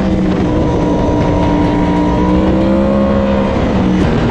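Sport motorcycle engine running at steady high revs, its note slowly rising as it accelerates, over wind rush on the helmet microphone. About four seconds in there is a short click and the engine note shifts.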